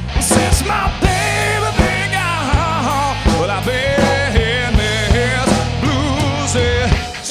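Live blues-rock band playing: drum kit, bass and electric guitar, with a bending, wavering lead melody over the top.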